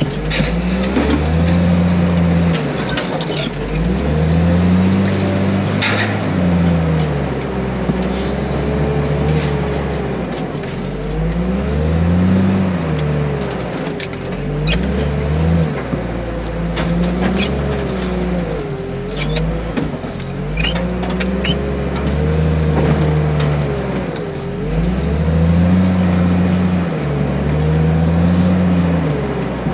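Fork loader's engine running under load, revving up and falling back over and over as the machine drives and maneuvers, with an occasional sharp knock or clank.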